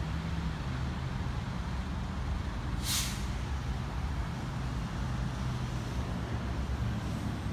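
City street traffic with a heavy vehicle's engine running steadily, and one short hiss of air brakes about three seconds in.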